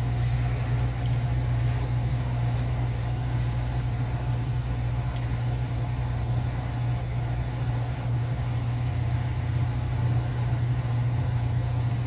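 Steady low background hum, even throughout, with a few faint clicks.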